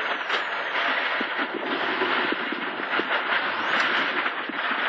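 Cabin sound of a Hyundai Accent WRC rally car at speed on a gravel road: a steady rush of its turbocharged four-cylinder engine and road noise, with a few short knocks.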